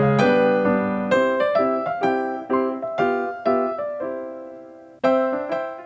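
Background music: a solo piano or electric piano playing a gentle melody of single struck notes and chords that ring and fade, with a new chord about five seconds in.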